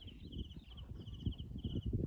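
Cricket chirping steadily, short pulsed chirps about three a second, over irregular low thumps and rustling.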